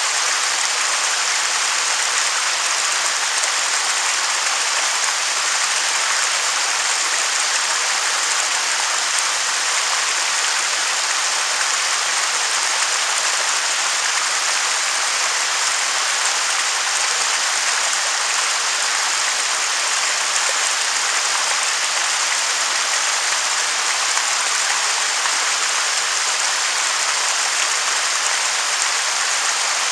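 Waterfall rushing: a steady, unbroken hiss of falling water with little low rumble.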